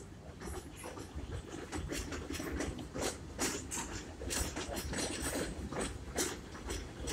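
R62A subway train passing on an elevated steel structure: a low rumble with irregular clicking and clattering over it.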